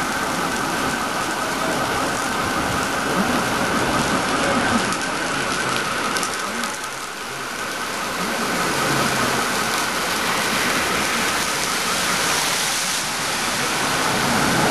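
Heavy rain pouring steadily onto a flooded street.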